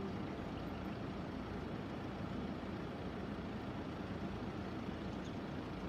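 A vehicle engine running steadily, a low, even rumble with a hiss over it.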